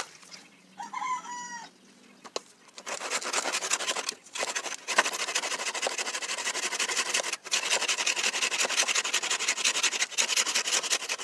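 Hand saw cutting through a woody alagaw stem: a steady rasp of rapid back-and-forth strokes starting about three seconds in, with a few brief pauses.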